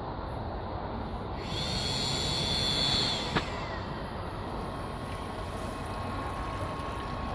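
Webasto Thermo Top V diesel water heater starting up after being switched on: a steady running noise, with a thin steady whine from its pump or combustion fan coming in about halfway through. A brief hiss in the first half ends with a sharp click.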